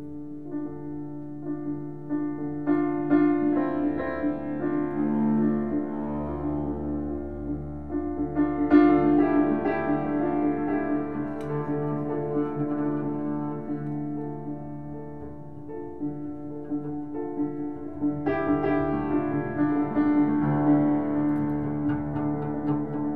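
Piano and bowed double bass playing a slow improvised duet: long held low bass notes under waves of piano chords that swell and fade, loudest about nine seconds in and again near the end.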